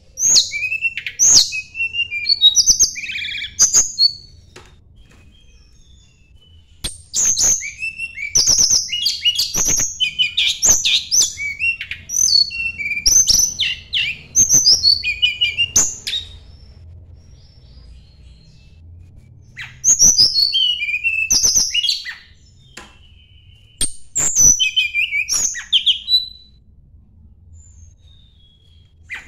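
Tledekan gunung songbird singing in bursts of rapid, high, varied chirps and whistles, with pauses of a few seconds between the phrases.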